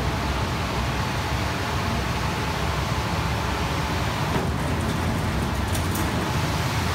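Thread-sucking machine's suction blower running steadily, a constant rushing hum of air drawn through its hose and nozzle.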